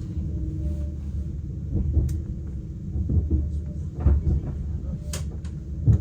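Low rumble inside an ICE high-speed train carriage, with a couple of sharp knocks, one about two seconds in and one about five seconds in.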